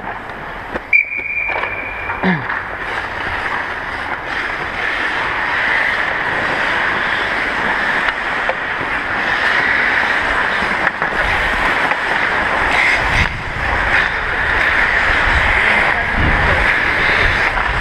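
A whistle blows once for about a second, then ice skate blades scrape and carve on the ice, mixed with rushing wind on a skater's head-mounted camera microphone, the noise growing louder as the skater speeds up.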